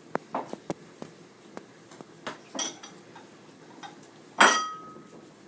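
Utensils knocking and clinking against a mixing bowl during stirring, a handful of sharp taps, with one loud ringing clink about four and a half seconds in.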